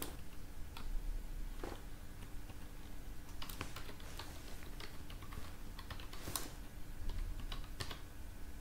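Typing on a computer keyboard: scattered single keystrokes, then quicker runs of keys in the second half.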